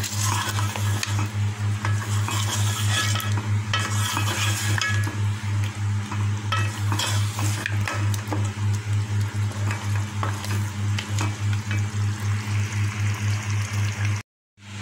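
A wooden spoon stirs and scrapes through mutton curry in a metal pot while the gravy sizzles on the heat, with repeated knocks of the spoon against the pot. Under it runs a steady low hum that pulses about three times a second. The sound cuts out briefly near the end.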